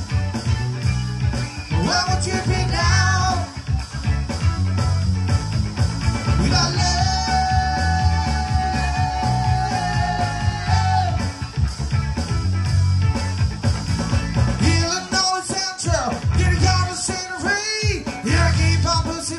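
Live band playing an up-tempo pop-rock cover, with a steady bass beat, guitar and singing; a long held note rings out about seven seconds in.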